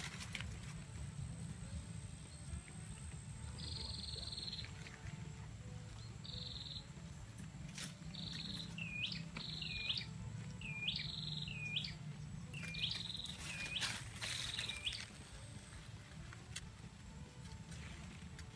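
A bird calling repeatedly: a series of high, even notes, several of them followed by a short note that hooks downward, from a few seconds in until a few seconds before the end. Beneath it are a steady low rumble and a few brief rustles of leaves and grass being handled.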